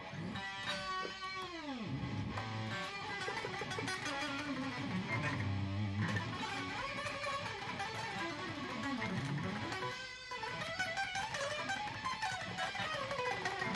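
Electric guitar played solo in fast lead lines, with notes swooping down and back up in pitch, and a brief break about ten seconds in.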